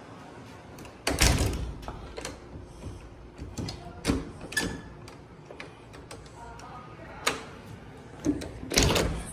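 Curtains rustling as they are pushed aside and a sliding glass door being handled and slid open, heard as a series of short scrapes and knocks; the loudest bursts come about a second in and near the end.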